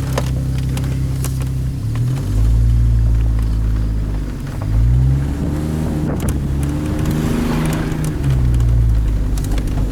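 2002 Chevrolet Trailblazer's 4.2-litre inline-six engine and exhaust running under way, the revs climbing about two seconds in and again near five seconds, then easing off after eight seconds. It runs smoothly, with the cylinder 3 misfire now fixed.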